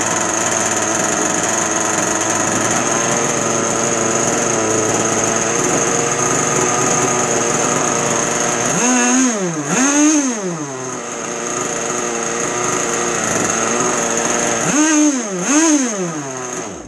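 Zenoah two-stroke gas engine of an RC boat running on the bench with no load while its carburetor is being tuned. It runs steadily, is blipped up in two quick revs about nine seconds in and two more near the end, then cuts off suddenly.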